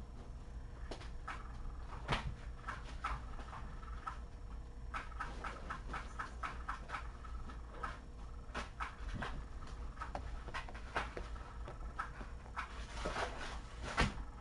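Cats moving about a room: scattered light clicks, taps and rustles over a steady low hum, with a louder knock near the end as a cat steps up onto the couch close by.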